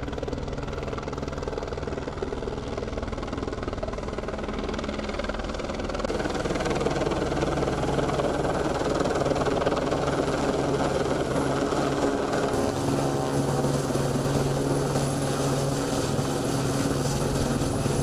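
Helicopter overhead, a steady rotor and engine noise that grows louder about six seconds in.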